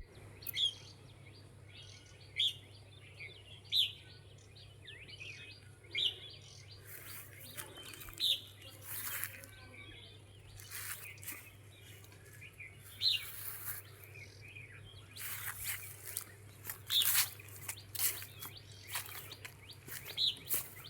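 Small birds chirping in short repeated calls, with scattered rustling noises joining from about seven seconds in.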